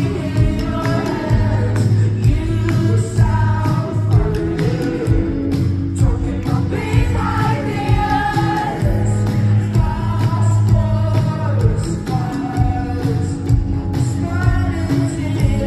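Live band performing with a female lead singer: vocals over drums, electric guitars and keyboards, with a steady bass line and regular drum hits, heard amplified in a large hall.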